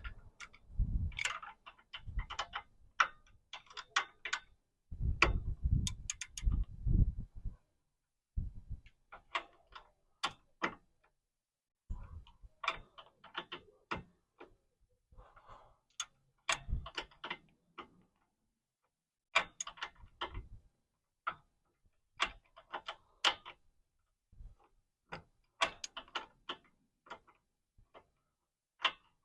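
Ratchet wrench clicking in short bursts of rapid strokes, separated by pauses, with a few dull knocks in the first few seconds, as a stubborn power steering hose fitting is worked loose.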